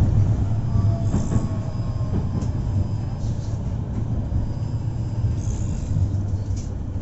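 Moscow tram running along its rails, heard from inside the car: a steady low rumble, with faint thin whines about one to two seconds in that sink slightly in pitch.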